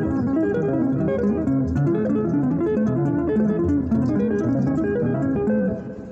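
Electric guitar played with two-handed tapping on the fretboard, a quick, continuous run of tapped notes in octaves. The notes drop away briefly just before the end.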